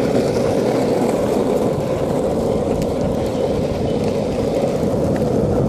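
Skateboard wheels rolling steadily over an asphalt path, a continuous even road noise.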